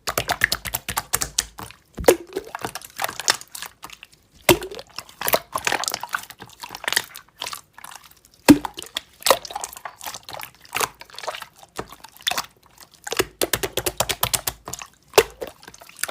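Slime being squeezed and worked by hand: a continuous run of short wet clicks, pops and squelches.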